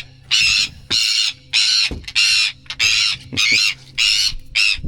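A bird calling over and over, about nine short, rough cries at roughly two a second.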